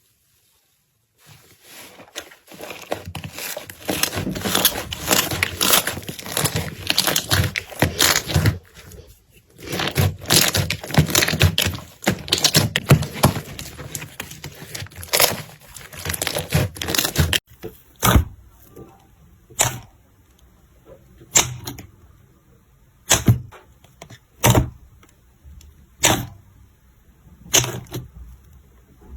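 Slime being squeezed and worked by hand, a dense run of crackling and squishing for about sixteen seconds. Then come single sharp pops, about one every second and a half, as the slime is poked or pressed.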